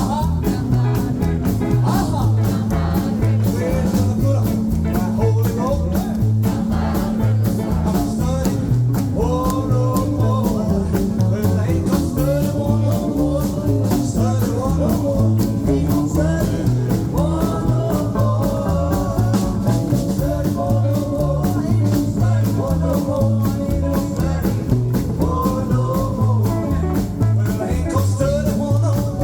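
Live rock and roll band of electric guitar, bass and drums playing an instrumental stretch with a steady driving beat and a bass line that repeats.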